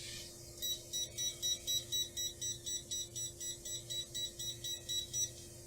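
Quadcopter transmitter beeping rapidly, about four short high beeps a second with a brief break near the end: the flip-mode signal after the joystick is clicked to make the JJRC H8 mini quadcopter flip. A steady low hum runs underneath.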